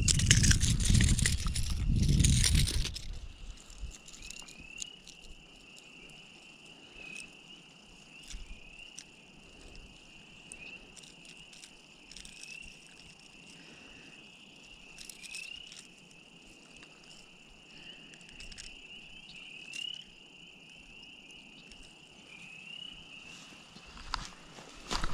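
A chorus of spring peepers: a steady high trill with single short rising peeps every second or two. A loud rustling noise stops about three seconds in.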